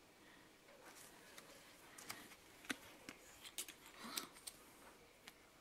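Faint, scattered light clicks and soft handling noises from a plastic lotion tube being handled and opened.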